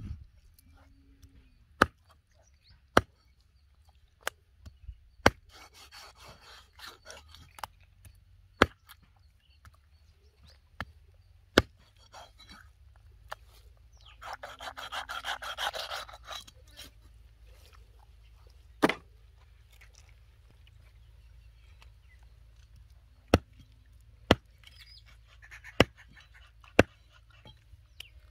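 Single sharp knocks of a knife chopping on a wooden board, coming irregularly a second or several apart, with two short stretches of scraping in between, as small stingrays are cut and cleaned.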